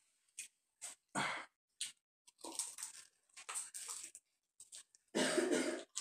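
Close-miked eating sounds of a man biting and chewing fried chicken drumsticks, in short separate bites and smacks. A louder, longer breathy burst, like a cough, comes about five seconds in.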